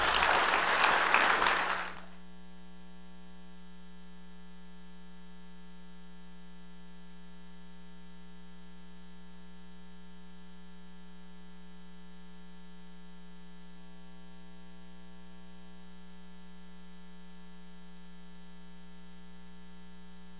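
An audience applauding, cut off abruptly about two seconds in, followed by a steady electrical mains hum with a stack of overtones.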